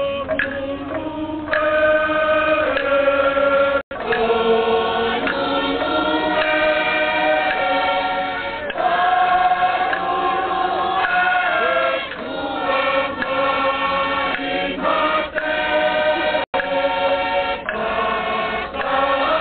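Tongan chorus singing a chant in several-part harmony, with long held notes. The sound cuts out for an instant twice.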